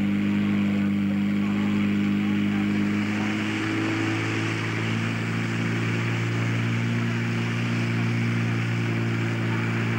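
Portable fire pump engine running hard and steadily. About three to four seconds in, its note changes as water starts to flow through the hoses, and a hiss of spraying water is added.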